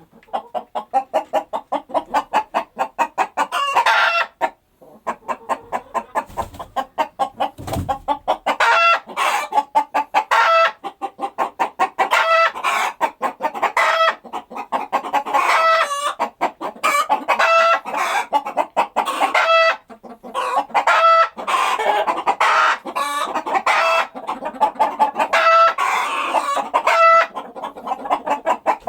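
Domestic chickens clucking in rapid, repeated calls, with a rooster crowing among them. There is a brief break about five seconds in.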